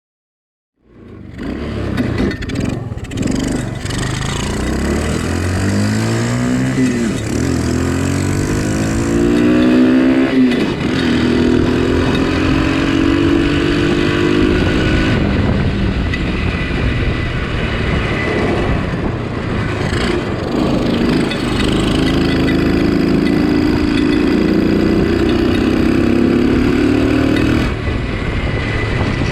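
Homemade shifter kart's motorcycle engine running hard under acceleration. Its pitch climbs and falls sharply about seven and ten seconds in, as it would when shifting up, then climbs steadily again with another sudden drop near the end.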